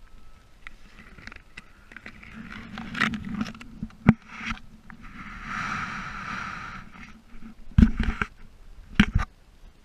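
Knocks and scrapes from a camera being handled, over a steady low hum, with a rushing water hiss about five to seven seconds in as a small fish is released into the creek.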